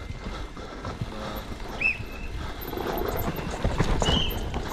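Cube Two15 downhill mountain bike descending a dry, dusty trail at speed: tyres skidding and scrabbling over loose dirt, with chain and suspension rattling over the bumps, getting louder about three and a half seconds in. Two short high squeals cut in, one about halfway and one near the end.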